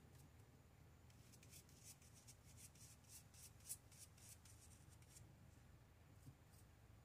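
Faint, quick scratchy strokes of a small bristle brush rubbed back and forth across an archival ink stamp pad, loading the brush with ink. The strokes start about a second in and stop about a second before the end.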